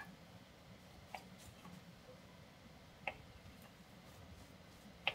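Knife cutting through a block of tofu, the blade tapping the bamboo cutting board in four short clicks spaced a second or two apart, the last the loudest, over a faint steady low hum.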